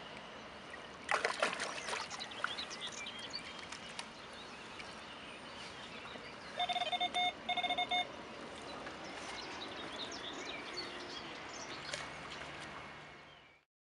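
Lake water splashing and trickling as a large mirror carp is released from the angler's hands and swims off, with a burst of splashing about a second in. Midway comes a quick run of short electronic beeps.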